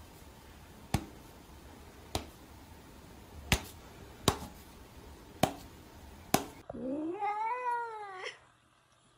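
Six sharp taps or knocks, roughly a second apart. Near the end comes a cat's long drawn-out meow that rises and then falls in pitch.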